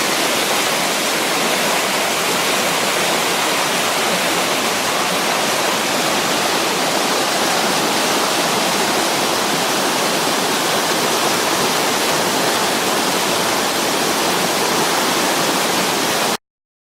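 Waterfall: a steady, loud rush of falling water that stops abruptly near the end.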